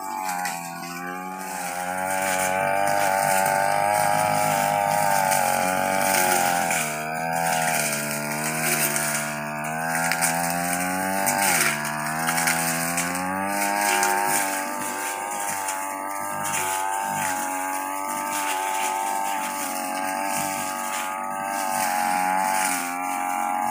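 Backpack brush cutter's small engine running under load, its pitch wavering up and down as the throttle and the cutting load change while it cuts grass and ferns, with a brief dip and rise in pitch about halfway through.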